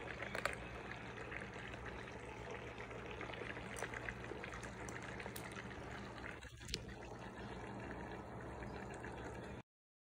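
Toy fishing pond running, its water circulating with a steady trickle over a low hum, with a few light plastic clicks. The sound cuts off suddenly near the end.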